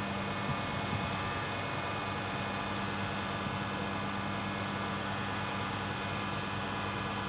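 Engine running steadily to drive the vacuum pump that draws the tank trailer down to negative pressure, a constant drone with a low hum and hiss.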